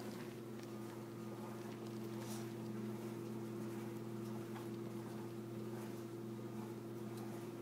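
Steady low hum, with a few faint taps and rustles from a small dog pouncing on a plush toy on a cloth couch.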